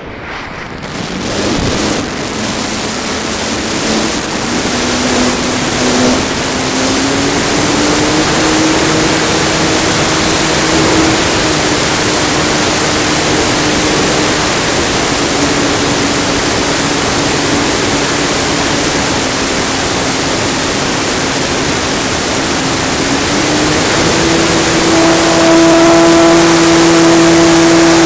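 Motor and propeller of a 64-inch Extreme Flight MXS RC aerobatic plane heard from a camera mounted on the airframe, under heavy rushing airflow noise. The propeller's hum rises and falls in pitch with the throttle, then steps up a few seconds before the end and holds steady and louder.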